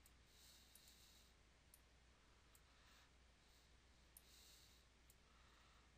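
Near silence: faint room hiss with a few faint computer-mouse clicks.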